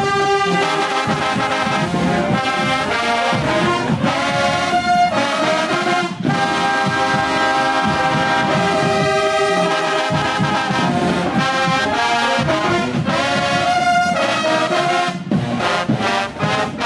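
A marching band's brass section, trombones at the front, playing loud sustained chords, with a short break about six seconds in and a series of short punched chords near the end.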